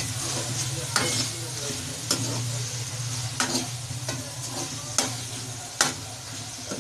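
Karela and onion masala sizzling in a metal wok while a metal spoon stirs it, knocking and scraping against the pan about once a second.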